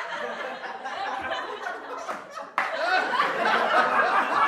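Audience laughter from many people at once, with scattered clapping. It eases off a little, then breaks out again suddenly and louder a little past halfway.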